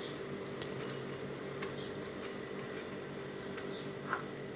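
A few faint, light clicks and taps of hands working with a dish while a chocolate ball is rolled in sprinkles, over a steady low hum.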